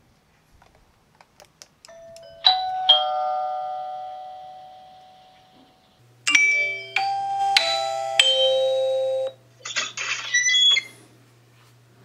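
Doorbell chime: a two-note ding-dong that rings and slowly fades, then a brighter electronic chime melody of held tones that stop abruptly, with a few shorter notes near the end.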